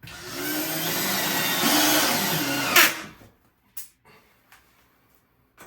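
Power drill driving a screw with a washer, running steadily for about three seconds and stopping abruptly with a sharp click, then a few faint taps.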